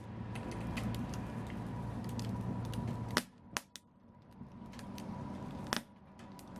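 Wood fire in a fireplace crackling, with a steady low rumble under many small snaps. A sharp loud pop about three seconds in is followed by a quieter, sparser crackle, with another pop soon after and a loud one near the end.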